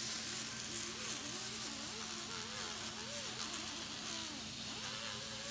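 Hand-held rotary tool burnishing a bronze torch, its whine wavering in pitch as it is pressed on and eased off, over a steady hiss and hum.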